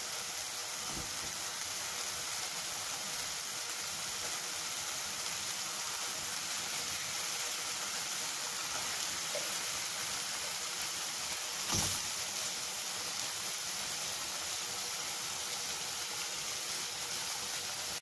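Spiced yogurt gravy bubbling and sizzling steadily in a pan as fried hilsa steaks are laid into it, with a single knock about two-thirds of the way through.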